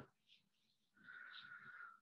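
Near silence, with a faint steady high-pitched tone coming in about a second in.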